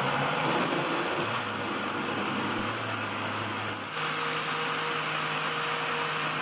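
Electric countertop blender running, puréeing cooked tomatoes with chili and ginger: a steady motor whir whose hum shifts up in pitch about four seconds in.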